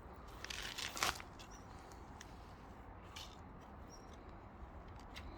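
Cat scuffling with a snake on the ground: a short burst of rustling about half a second in, ending in a sharper scrape, then a few faint scattered ticks and rustles.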